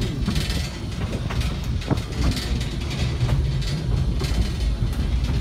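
Narrow-gauge railroad passenger car rolling along the track: a steady low rumble, with sharp wheel clicks every half second or so over the rail joints.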